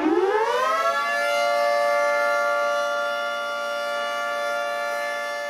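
2T22 outdoor warning siren winding up, its pitch rising over about the first second, then holding a steady wail made of several tones at once.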